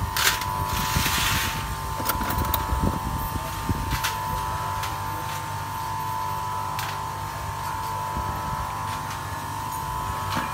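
Light metallic clicks and clinks of hand tools and motorcycle clutch parts being handled, a few at a time, over a steady low rumble and a constant high hum, with a short hiss about a second in.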